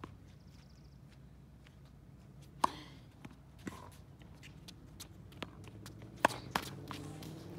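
A tennis ball being struck with rackets and bouncing on a hard court: a few sharp pops, the loudest about two and a half seconds in and just after six seconds, with light shoe steps on the court between them.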